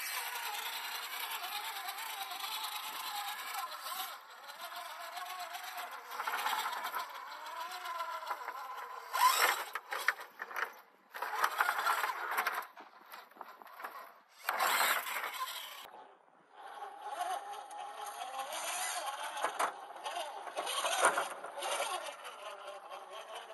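Redcat Gen8 1/10-scale RC rock crawler's electric motor and geared drivetrain whining in stop-start bursts, the pitch rising and falling with the throttle as it crawls over rock, with a few knocks in between.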